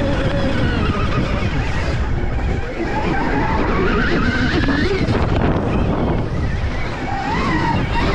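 Electric motocross bike running hard, its motor whine rising and falling in pitch with the throttle, over a steady rush of wind on the microphone.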